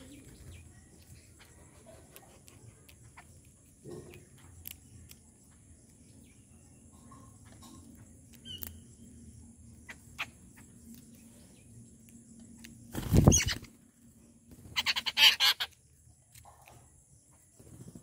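Birds feeding on scattered grain: faint pecking clicks throughout, a loud brief flutter of wings close by about two-thirds of the way in, then a short burst of harsh, rapid chattering calls.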